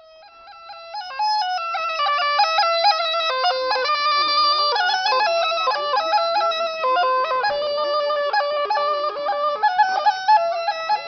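Bulgarian gaida (bagpipe) playing a lively folk dance tune, a quick stepping melody with ornaments. It fades in over about the first second, then plays on at full strength.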